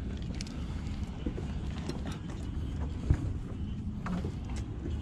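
Low rumbling handling and wind noise on a GoPro's microphone, with a few faint clicks and knocks and one sharp thump about three seconds in.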